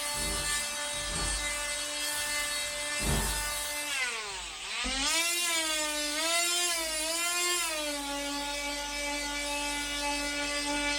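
Electric power sander running against the brake van's timber woodwork with a steady motor whine, keying the wood for paint. About four seconds in its pitch drops sharply, then recovers and wavers for a few seconds before running steady again.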